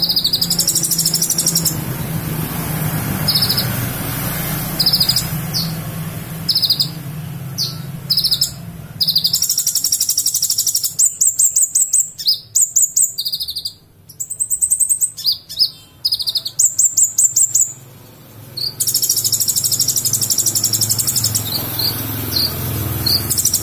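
A songbird singing loud, rapid, high-pitched chirps and trills in repeated bursts with short pauses between phrases. A steady low hum runs underneath during the first half.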